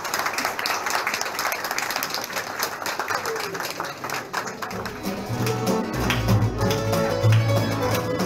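Applause and crowd chatter. About five seconds in, a tamburica string band with double bass starts playing, the plucked notes and low bass growing stronger over the clapping.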